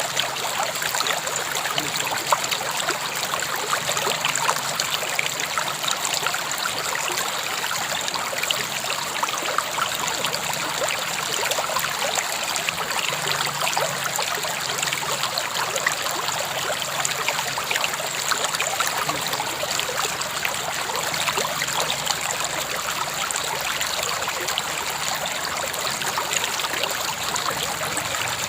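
River water flowing steadily over rocks, a continuous rushing and babbling with many small splashes and trickles.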